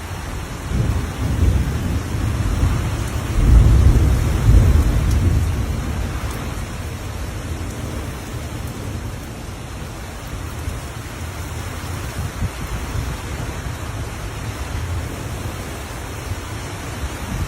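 Thunder rumbling over steady rain: a deep roll builds about a second in, is loudest a few seconds in, then fades away slowly while the rain keeps falling.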